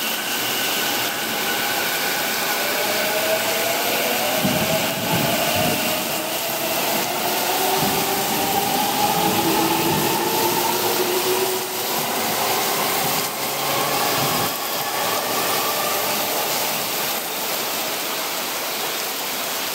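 E233 series electric train pulling out in heavy rain: its motors give a whine of several tones that rises in pitch as it gathers speed, with low knocks of the wheels over the rails, fading as it leaves. A steady hiss of downpour runs under it all.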